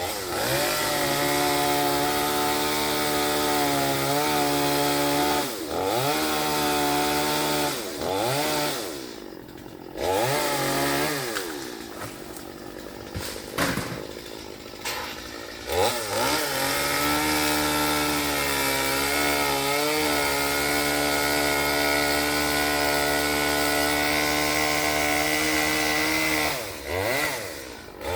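Chainsaw running at high throttle, its engine note dropping toward idle and revving back up several times, then held high and steady for a long stretch in the second half.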